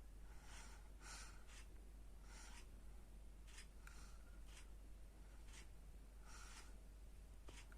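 A sleeping baby breathing quickly and faintly with light snores: short, soft puffs of breath about once a second, over a low steady hum.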